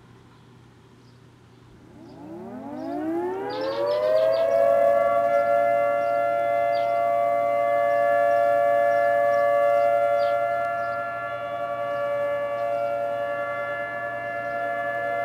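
Outdoor tornado warning sirens winding up about two seconds in, rising in pitch for a couple of seconds, then holding a steady multi-tone wail: the monthly siren test. The main siren is a Federal Signal 2T22-type dual-tone siren, with an American Signal T-128 in the background.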